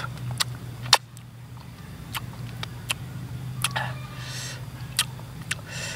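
Irregular wet clicks and smacks of someone chewing sour menteng fruit, over a steady low hum.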